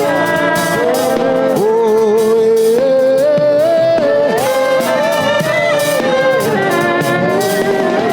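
Live gospel worship band playing: a held melody that moves in steps over a steady beat.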